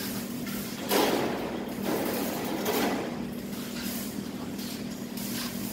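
Thin cut steel sheet scraping and rattling in a few swells as it is slid and lifted off the plasma cutting table's metal bed, over a steady low hum.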